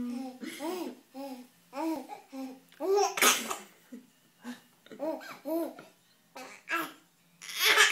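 Baby laughing and babbling in short repeated bursts, with louder breathy laughs about three seconds in and near the end.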